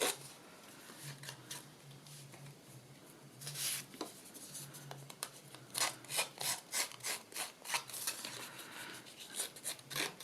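Short scraping strokes along the edge of a paper card as it is distressed and frayed with a blade. A few strokes come about a third of the way in, then a quick run of strokes follows from just past halfway to near the end.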